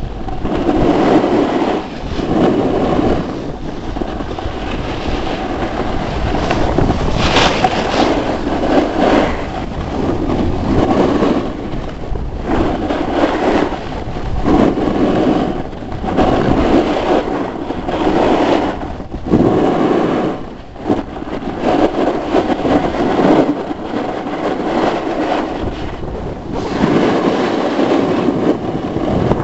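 Snowboard sliding and carving on packed snow, a continuous scraping rumble that surges and eases every second or two with the turns, mixed with wind buffeting the microphone.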